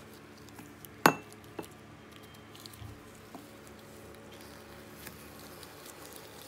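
A plastic ice cream scoop clinks sharply against a glass dessert bowl about a second in, with a lighter knock half a second later. After that come a few faint ticks and scrapes as the scoop works through frozen mango ice cream in a plastic tub.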